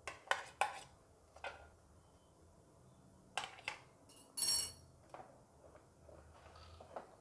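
A utensil knocking and scraping against a non-stick waffle maker and a serving tray as cooked waffles are lifted out and set down: a few light clicks and knocks, the loudest a short metallic clink that rings briefly about four and a half seconds in.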